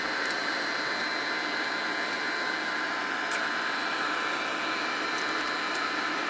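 Steady whirr of a 3D printer's cooling fans, with three faint clicks as metal binder clips are fastened onto the print bed.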